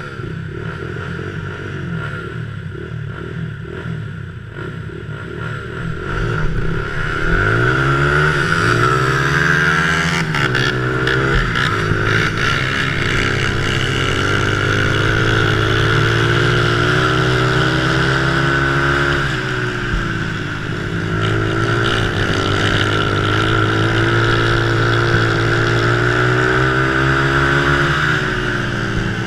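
Vintage 200cc-class three-wheeler's small single-cylinder engine ticking over, then revving up hard about seven seconds in, climbing through the gears and running at high revs on the dirt oval. The revs dip briefly about two-thirds of the way through and again near the end.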